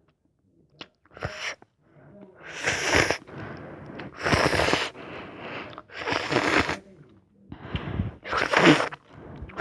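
Ramen noodles being slurped in several loud, airy pulls a second or two apart.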